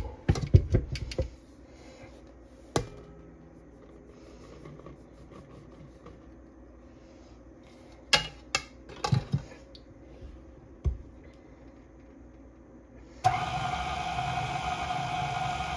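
A few knocks and clinks as the bowl and beater are handled, then about thirteen seconds in a KitchenAid Classic stand mixer's motor switches on and runs steadily, its flat beater mixing flour into banana batter.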